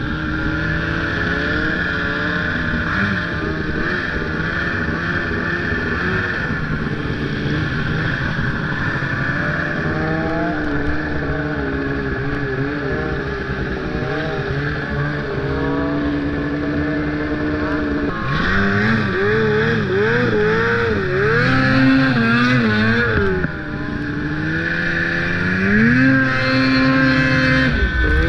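Snowmobile engine running as it is ridden. Its pitch rises and falls with the throttle, with repeated revs in the last third.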